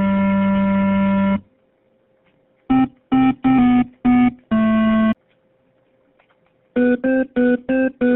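Simple electronic keyboard music. A held chord stops about a second and a half in, then after a pause come five short notes, the last one longer. After another pause, quick repeated short notes start near the end, about three a second.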